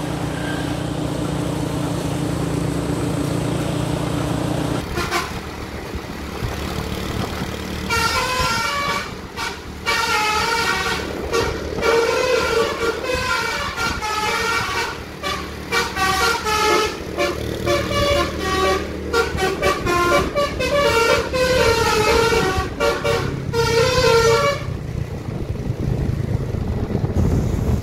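Indonesian tour bus's telolet (basuri) multi-tone air horn playing a quick melody of changing notes for about sixteen seconds, over the bus's running engine. A low steady drone comes before the melody, and the horn stops sharply near the end.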